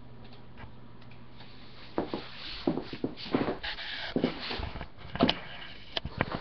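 A steady low hum, then from about two seconds in, irregular knocks, rubs and rustles: the handling noise of a webcam and its cable being picked up and moved around.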